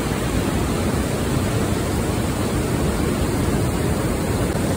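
Steady rushing of a fast, choppy river current around a wader, an even noise with a heavy low rumble and no breaks.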